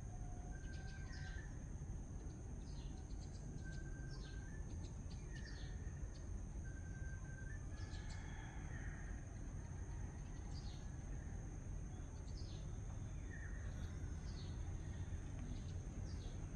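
Outdoor evening ambience: birds give short chirps and whistled notes every second or so over a steady high-pitched insect-like whine and a constant low rumble.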